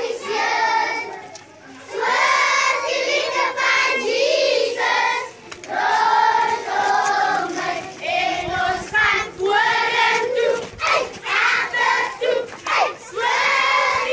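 A large group of schoolchildren singing together in short phrases, with some hand claps in the second half.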